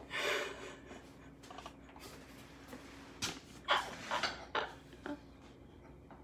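Wooden cutting board knocking and scraping against a kitchen island as it is handled and lifted with a row of potatoes on it: a short burst just after the start, then a cluster of sharp wooden knocks between about three and five seconds in.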